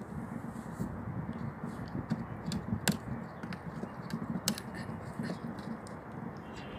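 A dog gnawing on a large chunk of old wood: teeth scraping and crunching into it with irregular crackling, and two sharp cracks, about three seconds in and a second and a half later.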